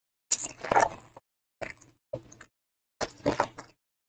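A 2023 Topps Stadium Club baseball card pack's foil wrapper being torn and pulled open by hand, crinkling in four short bursts.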